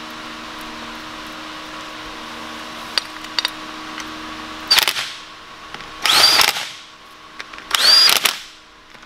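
Cordless drill/driver run in three short bursts, its motor whine rising and levelling each time, driving in the bolts of a rear differential cover. Before the bursts there is a steady low hum with a few light clicks.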